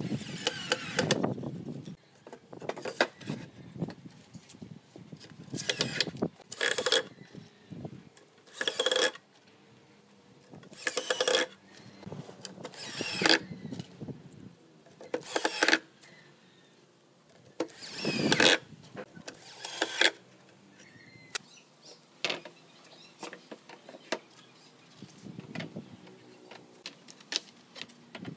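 Cordless drill driving screws into pine boards in short bursts, about ten in all, each a second or less with a pause of a second or two between. Fainter clicks and knocks in the last several seconds.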